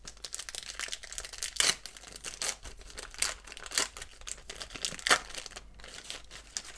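Wrapper of a 1990/91 Pro Set football card pack torn open and crinkled by hand: a run of irregular crackles with a few louder rips.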